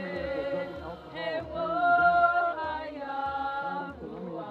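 Voices singing a chant in long, sliding notes over a steady low pulse, loudest about two seconds in.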